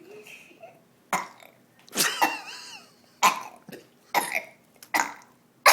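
A young girl burping over and over: about six short belches, roughly one a second, with a brief wavering higher-pitched vocal sound after the second.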